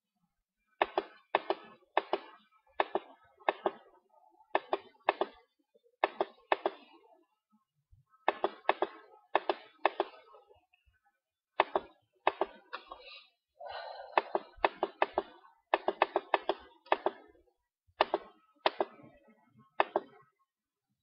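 Computer mouse clicking close to the microphone: sharp clicks in quick pairs and short runs, about every half second to second, with a brief low hum about two-thirds of the way through.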